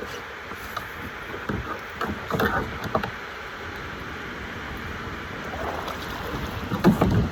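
Kayak paddle strokes dipping and splashing in the water, a few irregular splashes with a louder one near the end, over a steady wash of water and wind.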